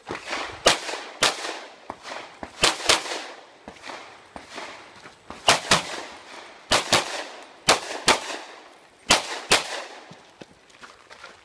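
Pistol shots fired in quick pairs, about a dozen in all, with short pauses between groups as the competitor moves between shooting positions on a practical shooting stage.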